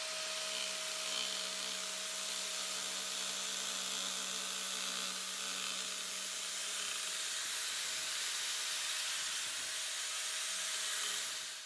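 An Arbortech Power Chisel runs steadily with its V blade held down in a wood groove, cutting a curved line. The tool is a reciprocating chisel attachment driven by an angle grinder. The sound cuts off abruptly near the end.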